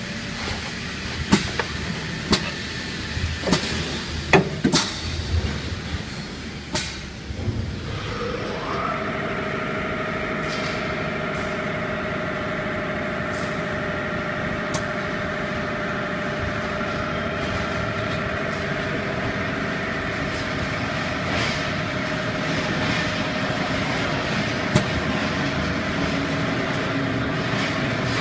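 Seamless welding machine for colour uPVC window profiles at work: a run of sharp clicks and clunks from its moving parts, then about eight seconds in a motor winds up and runs on with a steady whine.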